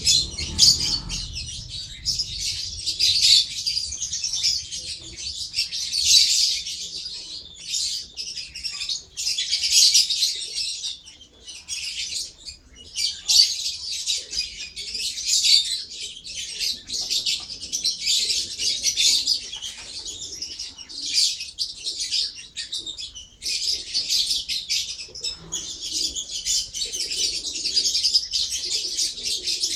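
Lovebird chattering in a fast, continuous stream of high-pitched chirps, pausing briefly a few times.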